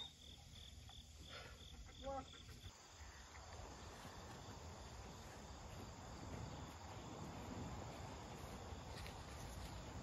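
An insect chirps in a fast, even pulse, about four chirps a second, for the first two or three seconds. After that there is only a faint, steady background hiss.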